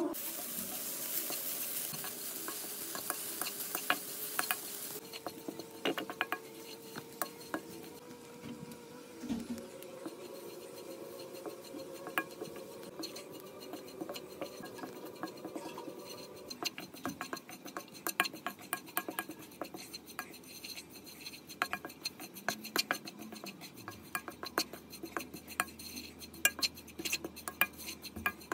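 A wooden spatula stirring and scraping grated coconut as it dry-roasts in a pan, with frequent irregular taps and clicks of the spatula against the pan. A soft hiss is heard over the first few seconds.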